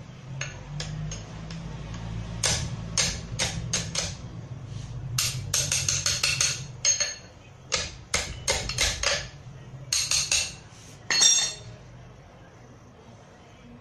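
Sharp metallic clinks and taps of tools and parts on a bare engine block being assembled, coming in irregular quick clusters with a brief ring after each.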